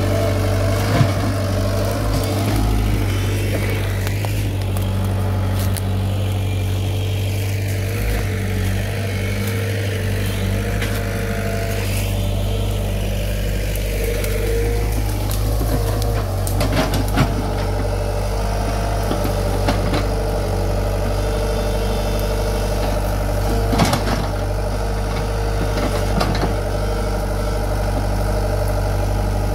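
Komatsu PC75 mini excavator's diesel engine running steadily, with a few short sharp knocks from the machine at work.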